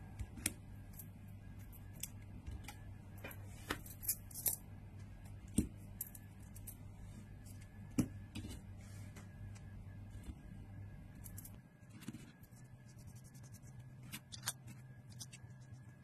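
Small metal parts of a slider fidget toy clicking and clinking as it is taken apart by hand: the bearing lock unscrewed and the magnetic bullets pulled out and set down on a table. Scattered sharp clicks, a couple of them louder.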